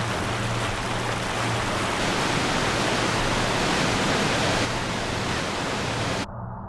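Rushing water from a stream or waterfall: a dense, steady rush that cuts off abruptly about six seconds in. A low held music drone continues underneath.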